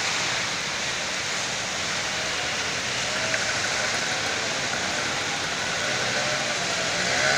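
Steady rush and splash of floodwater churned by vehicles driving through a flooded street, with engines running underneath; a motor scooter's engine note comes in near the end.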